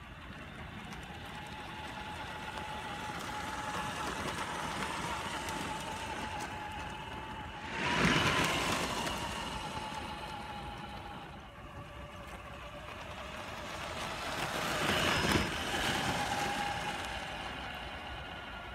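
Traxxas TRX-4 RC crawler driving on gravel: a steady electric-motor and drivetrain whine over the crunch of its tyres on loose stones. The sound swells twice, about eight seconds in and again near fifteen seconds.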